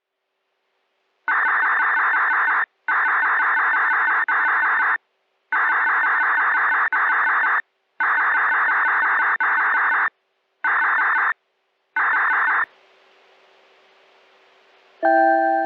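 Radio receiver picking up a municipal disaster-prevention radio broadcast: a run of harsh, buzzing signal bursts separated by short gaps, then a faint hiss with a low steady hum, and near the end the first ringing notes of the chime melody begin.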